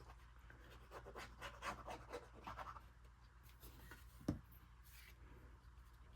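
Faint scratching and rubbing of cardstock as a paper panel is glued and pressed down by hand, followed by a single soft thump about four seconds in.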